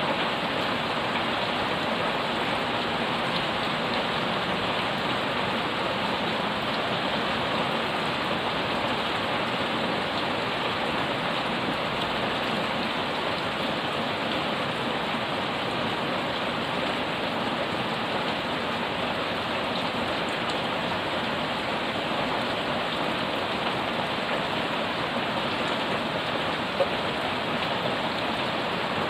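Heavy rain falling steadily on a paved yard and garden leaves: a dense, even hiss of drops that is fairly loud, with one sharper tap near the end.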